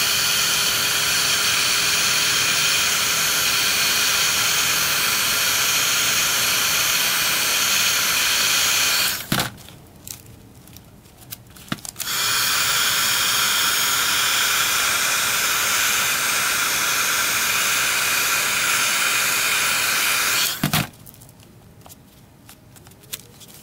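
Electric heat gun blowing steadily. It is switched off with a click about nine seconds in, switched back on about three seconds later, and cut off again near the end.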